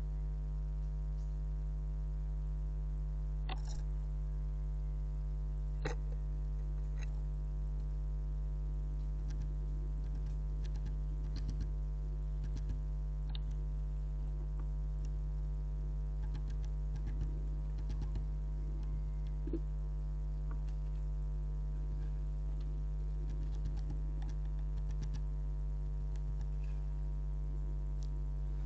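Steady electrical hum, with scattered small taps and clicks of great tits and blue tits pecking and landing at a seed feeder.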